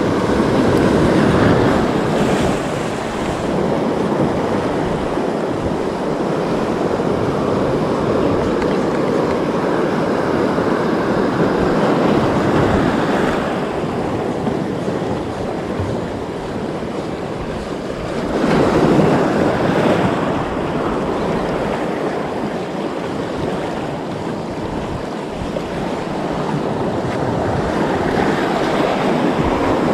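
Sea surf breaking and washing over shoreline rocks, a steady rush of water that swells louder with the bigger waves, most strongly a little past the middle.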